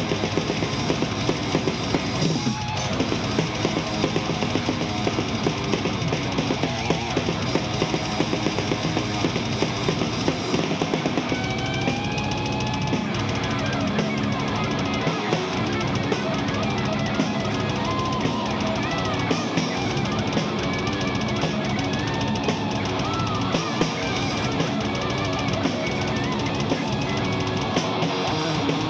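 Live heavy metal band playing an instrumental passage: fast drums with distorted electric guitars, the lead guitar bending notes through the middle of the passage.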